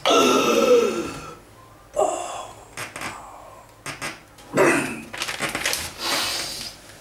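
A person's voice in a small room: a drawn-out exclamation with falling pitch at the start, a few shorter vocal sounds, and a breathy hiss near the end.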